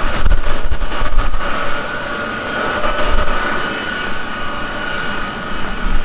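Boeing C-17A Globemaster III's four Pratt & Whitney F117 turbofan engines running at taxi power: a steady jet whine over a low rumble that swells in the first second or so.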